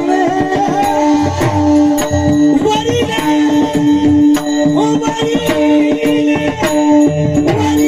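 Warkari kirtan music: a harmonium plays the tune over a held note, with hand cymbals (taal) struck about twice a second and a hand drum beating.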